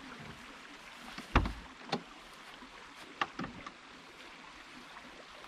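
Rear barn door of a VW Transporter T5 van being unlatched and swung open: one loud clunk about a second in, a lighter click just after, then two more clicks around three seconds in.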